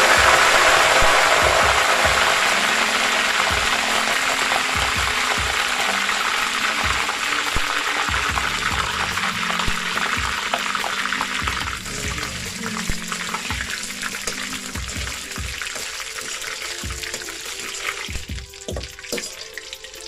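Potato fries sizzling in hot oil, a loud hiss that is strongest at the start and slowly dies down. Background music plays underneath.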